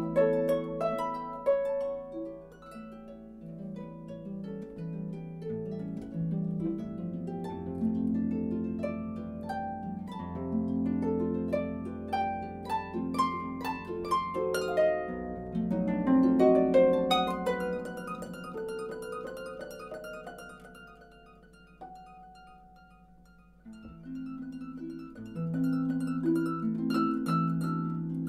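Solo concert pedal harp playing a classical piece in plucked notes and chords. The playing builds to its loudest about halfway through, thins to a few soft ringing notes, then picks up again near the end.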